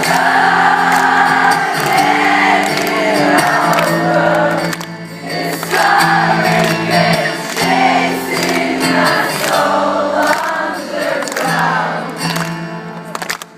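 Live rock band playing with many voices singing together, a concert crowd singing the lyrics along; the music drops away right at the end.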